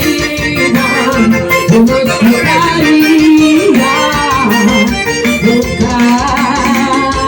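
Recorded song playing: an instrumental passage with a melody line over a steady beat.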